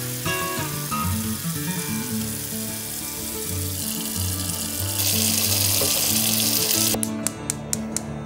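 Tap water pouring from a faucet into a stainless steel stock pot of raw in-shell peanuts, filling the pot around them. The water noise grows louder about five seconds in and stops abruptly about two seconds later, followed by a few sharp clicks. Background music plays throughout.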